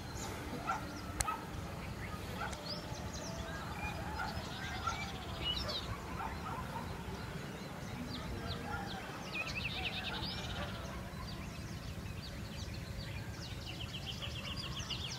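A chorus of wild birds in dry scrubland: many short chirps and whistled calls from several birds, with rapid trilling calls about ten seconds in and again near the end, over a steady low rumble.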